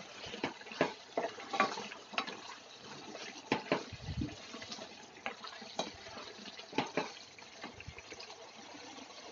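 A spatula stirring thick, bubbling chicken curry in a pan: irregular wet clacks and scrapes, frequent at first and sparser later, over a steady simmering hiss.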